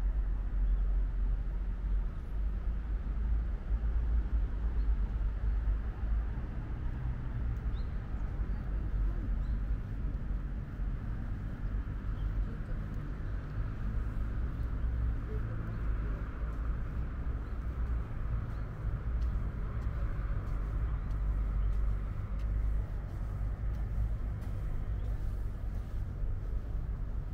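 Steady outdoor city ambience: a distant traffic hum with a low rumble underneath. In the second half, faint footsteps of someone walking on a paved path come in.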